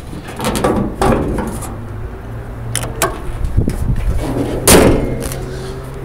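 A car hood being closed: a few light knocks and clicks as the prop rod is handled and stowed, then the hood slams shut once with a loud bang about three-quarters of the way through.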